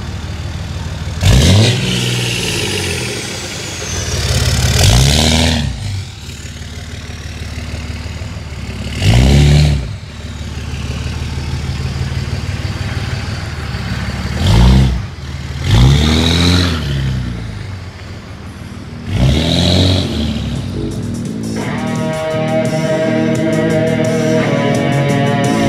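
2003 Dodge Ram 2500's 5.9-litre Cummins turbo diesel idling through a 4-inch exhaust and being revved hard about six times, each rev rising and falling quickly. Rock music with electric guitar and drums comes in near the end.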